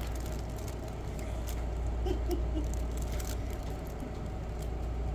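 Faint light rustling and ticking as a cat shifts against a fabric play tunnel and carpet, over a steady low hum.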